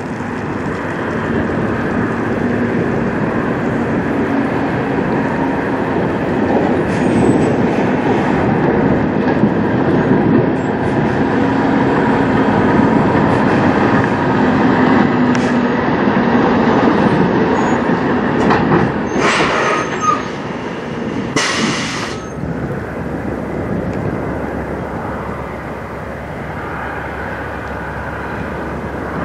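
Volvo VNL semi-truck's diesel engine and tyres rumbling as it drives slowly and turns close by, swelling to its loudest partway through. Two short sharp hisses of air sound about two-thirds of the way in, and after them a quieter, steadier truck engine runs on.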